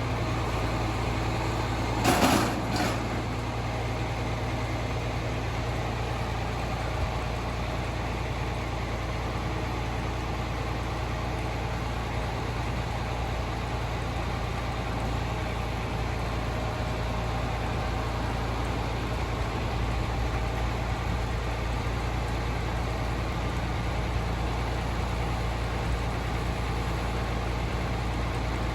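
An engine running steadily with an even low hum. Two short, loud noises come about two seconds in.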